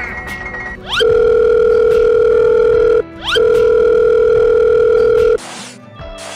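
Telephone calling tone added as a sound effect: two long steady beeps of about two seconds each, each led in by a quick rising swoop. Light music follows near the end.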